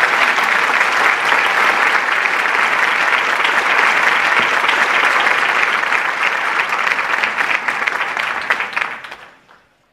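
Audience applauding, a steady dense clapping that fades out about nine seconds in.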